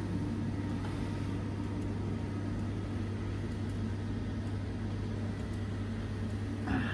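Steady low hum of cold-storage refrigeration machinery, with a few faint steady tones above it.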